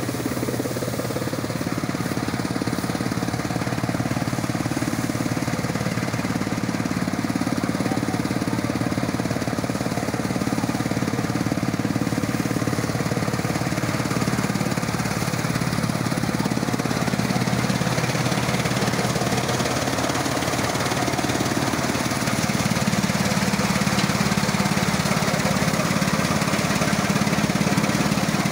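Threshing machine running steadily under power, with a fast low beat from the drive. It grows slightly louder and shifts in tone about two thirds of the way through.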